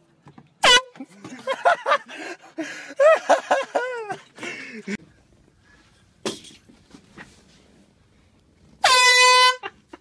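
Two canned air horn blasts: a short one about half a second in, followed by voices shouting for a few seconds, and a loud, steady one of under a second near the end, set off under an office chair seat.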